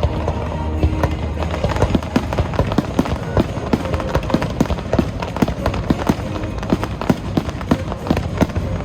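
Fireworks display: a rapid string of firework bursts and crackles, several a second, over the show's music.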